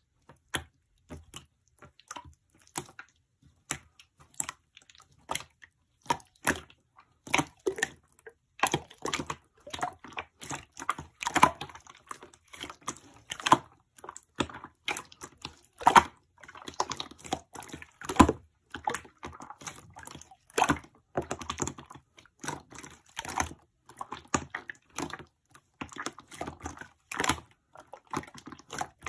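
A run of irregular small clicks and taps, like objects being handled close to the microphone, at an uneven pace with some louder taps.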